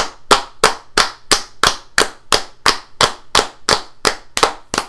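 One person clapping hands at a steady pace, about three claps a second.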